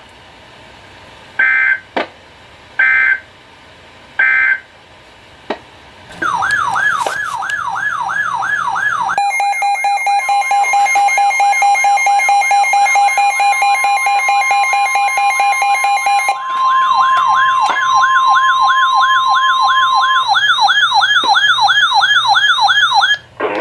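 Three short electronic data bursts of an Emergency Alert System end-of-message code, then a loud electronic alert tone that warbles rapidly up and down like a siren. From about 9 to 16 seconds in, steady beeping tones sound over it, and the warble runs on alone near the end.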